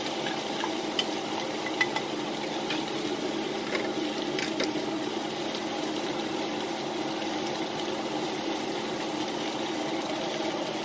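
Cubed beef sizzling steadily in a dry cast iron skillet, frying in its own fat now that its released liquid has cooked off. A few light clicks in the first half as diced onions are scraped into the pan from a glass bowl.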